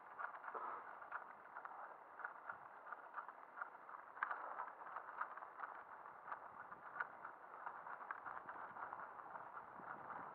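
Mountain bike rolling over a rutted dirt track: a steady rattle of the bike with many small clicks and knocks from the bumps.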